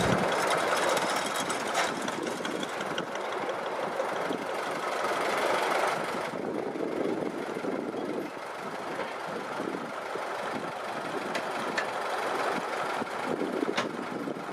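Bucyrus-Erie 15-B dredge running, a steady mechanical clatter with scattered sharp clicks.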